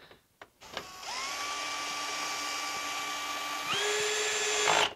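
Cordless drill/driver driving a screw into a plastic truck grille frame. A few light clicks come first. The motor whine starts about a second in and holds steady, steps up in pitch and gets louder near the end, then cuts off suddenly.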